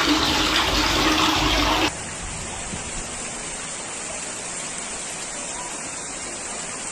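Steady rush of floodwater, with a low steady hum under it. About two seconds in it drops abruptly to a quieter, even rush of water.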